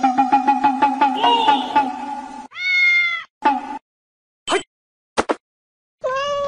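A domestic cat meowing twice: one drawn-out meow that rises and falls in pitch a few seconds in, and another near the end, with a few short taps between them. A steady two-note hum runs through the first two seconds or so.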